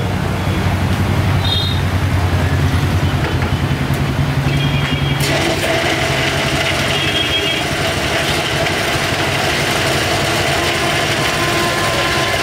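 Electric mixer-grinder running, blending a drink in its plastic jar. Its steady motor noise gets harsher and hissier about five seconds in.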